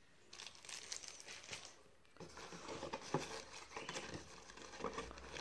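Soft rustling of a clear plastic bag, then from about two seconds in, many small crinkles and light clicks as a hand rummages through tissue paper in a cardboard box.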